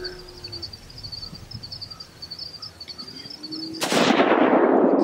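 A single gunshot about four seconds in, a sharp crack that rolls away over a couple of seconds; before it, small birds chirp steadily.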